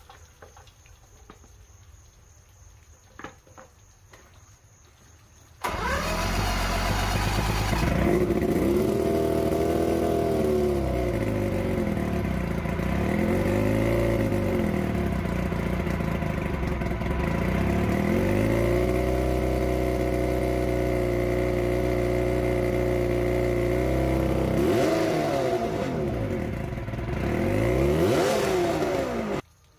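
Mercury two-stroke outboard with WMK carburetors bursting into life about six seconds in, then running and revving up and back down several times before it is shut off abruptly just before the end. It is a test run on a hose-fed stand to check that the freshly fitted water pump impeller pumps water.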